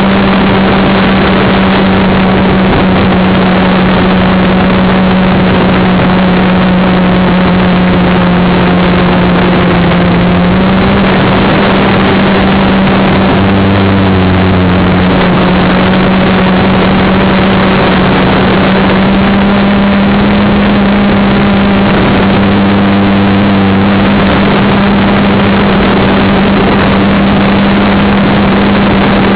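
A Gaui quadcopter's electric motors and propellers humming steadily and loudly, heard close up through its onboard camera's microphone. The pitch shifts slightly about ten seconds in, and again briefly a few times after that, as the throttle changes.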